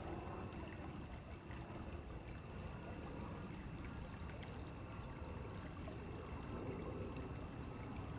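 Stream water flowing in a steady rush.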